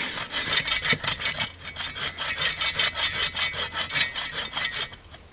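Hand saw cutting through a log with rapid, even back-and-forth strokes that stop shortly before the end.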